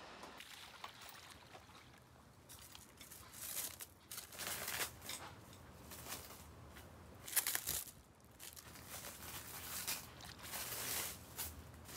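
Burning charcoal in a shichirin brazier crackling and ticking irregularly in small clusters, with the loudest pop about seven seconds in.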